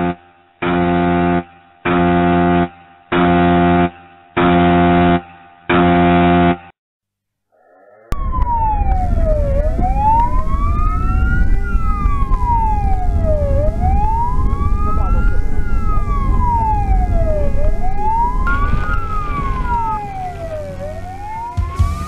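Six long electronic alert tones, evenly spaced about a second and a quarter apart, following a fire-brigade dispatch notification message. After a short pause, a fire engine's wailing siren rises and falls about every four seconds over engine and road noise, heard from inside the moving truck.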